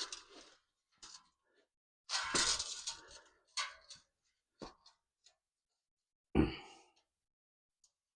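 Scattered handling noises during hands-on work: brief rustling and scraping sounds, the longest about two seconds in, and a sharper knock about six and a half seconds in.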